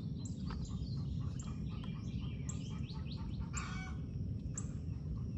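A hen cackling her egg song, the call given after laying, with a louder call about three and a half seconds in, among many short high chirps. A steady low rumble from the running pool pump lies underneath.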